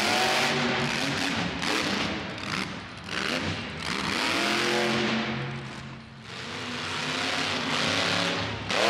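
Monster truck engine revving hard in repeated surges, its pitch climbing near the start, again about four seconds in and once more at the end, with a brief easing off about six seconds in.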